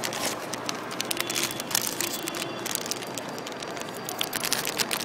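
Packaging of a Vinylmation blind box being opened by hand: a dense run of irregular crinkling crackles.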